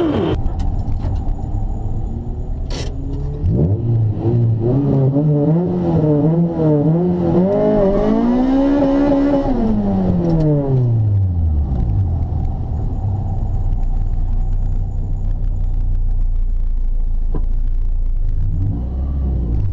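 Honda Integra Type R's 1.8-litre VTEC four-cylinder heard from inside the cabin. The revs are held up and bob unevenly, climb to a peak and fall back to a steady idle rumble, then rise briefly again near the end. A sharp click comes about three seconds in.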